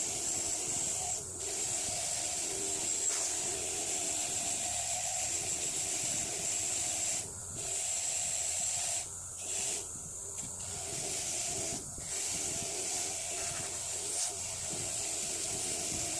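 Motor-driven wire wheel running with a steady hum while a rusty steel pipe wrench is held against it, the wire bristles scouring off rust with a constant hiss. The hiss drops out briefly several times, around the middle and after it, as the work is lifted off the wheel.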